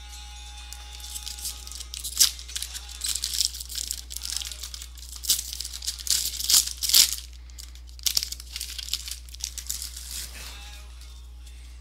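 2014 Topps Series 1 baseball card pack wrapper crinkling and tearing as it is opened by hand. The rustling is irregular, with several sharper crackles in the middle, over a steady low hum.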